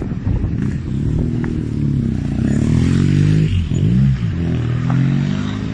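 Motor vehicle engine accelerating along a city street, its pitch climbing, then dipping sharply and climbing again about three and a half seconds in, with a light clatter of street noise underneath.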